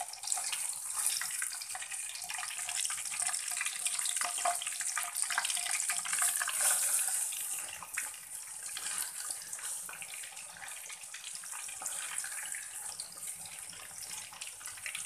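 Whole scored bighead carp frying in hot oil in a wok: a steady sizzle thick with fine crackles. It eases a little about eight seconds in.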